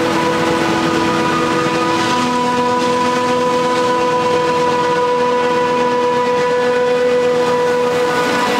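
Claas Jaguar 870 self-propelled forage harvester running while chopping corn for silage: a steady whine of several held tones over loud, even machine noise.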